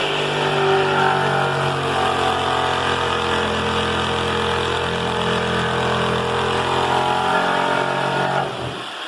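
A motor or engine running steadily at an even low pitch, which cuts off abruptly about eight and a half seconds in.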